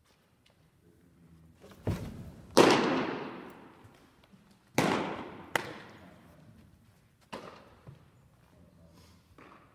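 Baseballs popping into leather catcher's mitts: about six sharp pops, mostly in pairs, each ringing on in the gym's echo, the loudest about two and a half seconds in.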